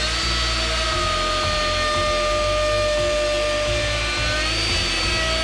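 DeWalt plunge router running flat out, cutting a rounded edge on a teak board: a steady high whine that rises slightly in pitch near the end, over the hiss of the bit chewing wood.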